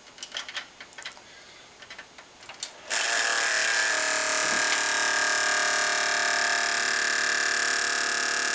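Desktop computer powering up: a few light clicks, then about three seconds in a loud, steady machine noise with several held whining tones starts abruptly as the fans and hardware come on. The owner believes the noise probably comes from the video card, where he feels a vibration.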